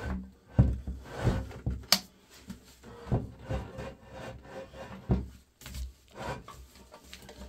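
Ceramic macerator toilet pan being pushed and shuffled toward the wall across a wooden floor: irregular scraping and rubbing with dull bumps, and one sharp knock about two seconds in.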